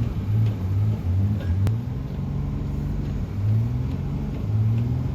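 Pickup truck engine revving in surges, its pitch rising and falling several times, with one sharp click about a second and a half in.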